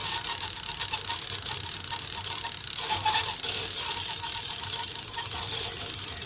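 Okuma Magda Pro line-counter trolling reel being cranked fast to spool on backing line, a steady rapid whirring and clicking, played back sped up.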